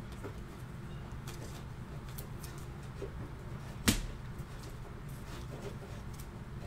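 A trading card being handled in a clear plastic holder: faint plastic clicks and rustles, then one sharp plastic click about four seconds in, over a steady low hum.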